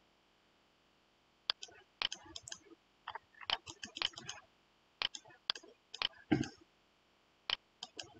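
Computer mouse buttons clicked again and again at an irregular pace, sometimes twice in quick succession, starting about a second and a half in.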